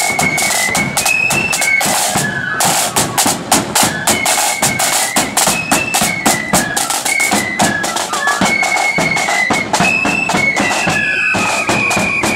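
Marching flute band playing a tune: flutes carry a high melody over busy snare drumming and a bass drum beat.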